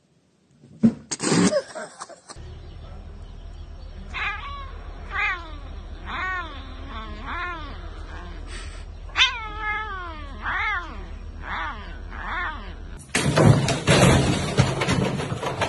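A domestic cat meowing over and over, about once a second, each call rising and then falling in pitch. A couple of loud knocks come near the start, and loud noise takes over about thirteen seconds in.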